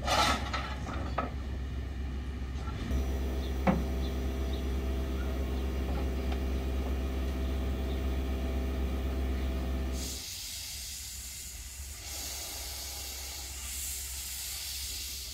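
Krauss-built 1887 steam tram locomotive of the Chiemseebahn standing in steam, hissing steadily with a low hum, with one brief sharp squeak-like sound a few seconds in. From about ten seconds in a stronger, higher hiss of steam blowing out low at the wheels, from the cylinder drain cocks.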